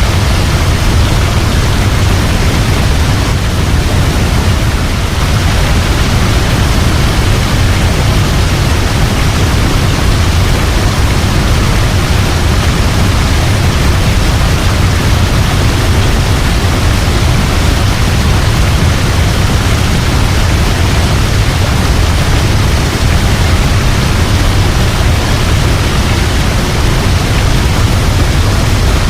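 Waterfall: a steady, loud rush of falling water, deep and even, with no breaks or changes.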